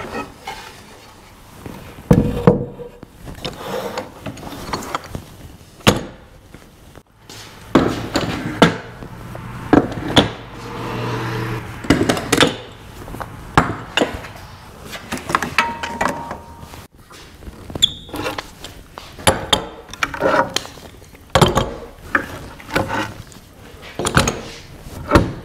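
Wooden handscrew clamps being loosened, pulled off a glued-up rocker and hung on a wall rack: an irregular run of sharp wooden knocks and clacks.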